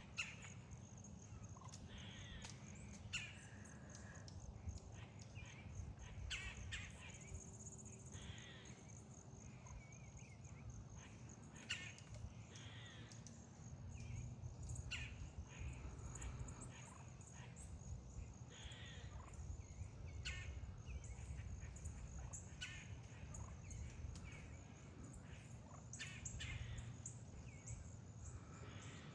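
Wild turkeys purring with soft calls and sharp pops scattered throughout, the purring of a flock feeding at ease, a sign of contentment.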